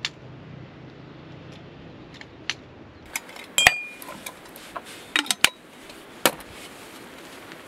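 Camp dishes and utensils clattering: a string of sharp knocks and clinks, the loudest a little past halfway with a short metallic ring. A low hum sits under the first three seconds.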